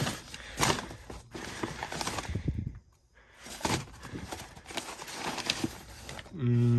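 Irregular footsteps and rustling as people move through the room. Near the end a man's voice gives a short held hum.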